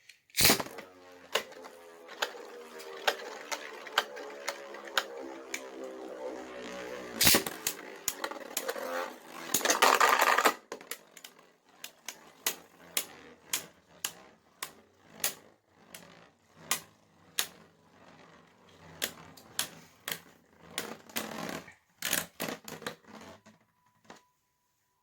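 Two 3D-printed Beyblade spinning tops launched and spinning against each other: a whir that slowly drops in pitch, with repeated sharp clacks as they collide and a dense burst of clashing about ten seconds in. The hits then come about once a second as the tops lose speed, and they stop shortly before the end.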